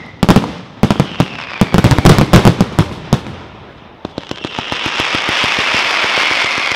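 Fireworks display: a rapid volley of loud bangs for about the first three seconds, then from about four seconds a steady hiss of ground fountains with fast crackling running through it.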